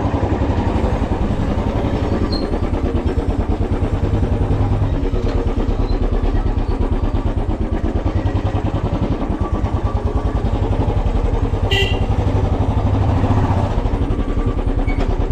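Motorcycle engine running at low speed as the bike is ridden, a steady rapid thumping with no gear changes or revving. About twelve seconds in there is one brief high-pitched tone.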